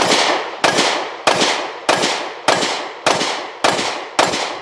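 Anderson Manufacturing Kiger 9C 9mm pistol firing about eight shots at a steady pace, a little under two a second, each shot trailing off in an echo.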